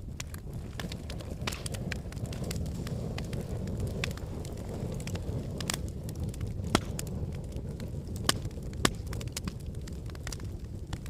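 Wood fire burning in a fireplace: a steady low rumble of flames with irregular sharp crackles and pops, three louder pops in the second half.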